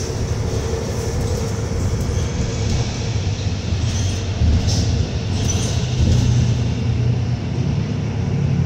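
Cabin noise of a 2022 New Flyer Xcelsior XD40 diesel city bus under way: a steady low engine drone mixed with road noise, with a few brief clicks.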